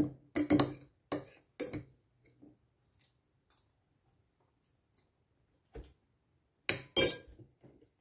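A metal fork clinking and scraping on a plate, several quick clinks in the first two seconds. Near the end come a few louder clinks and knocks of tableware being handled.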